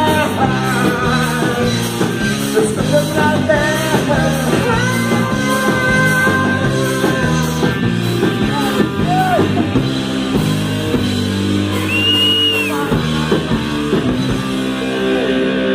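Rock band playing live: electric guitar, bass and drums, with a voice singing over them.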